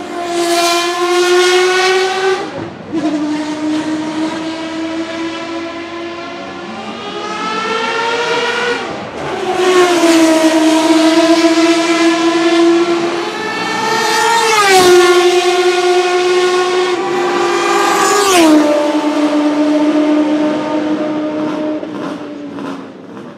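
Lola T92/10 Group C car's 3.5-litre naturally aspirated Judd V10 at high revs, a high steady note that passes close about four times, its pitch falling as it goes by.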